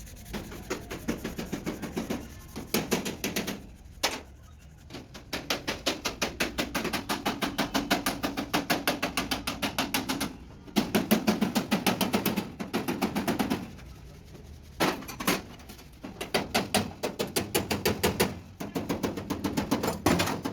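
Rapid hammer blows on truck-cab sheet metal, about five a second, in runs of a few seconds broken by short pauses, the panel ringing under the blows.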